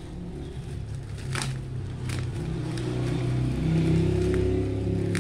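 A motor vehicle engine running close by, its low hum growing louder about three to four seconds in, while plastic packaging crinkles and gives a couple of sharp crackles as it is handled.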